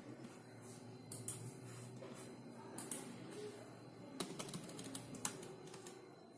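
Computer keyboard keys being pressed, faint and scattered at first, then a quicker run of keystrokes a little past halfway.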